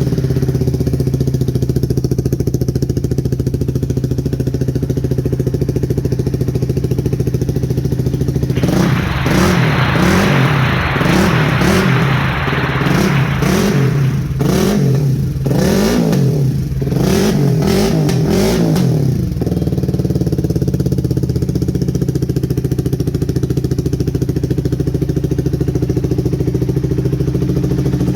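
CFMoto 250NK motorcycle's single-cylinder engine through an aftermarket full-system exhaust, idling steadily, then revved up and down in a series of throttle blips for about ten seconds before settling back to idle.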